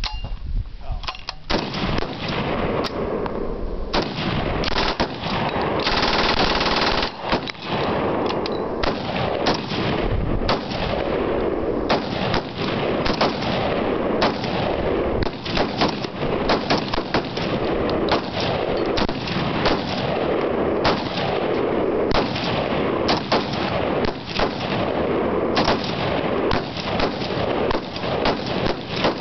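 Several full-automatic machine guns firing at once, long overlapping bursts that run together into near-continuous gunfire with hardly a pause.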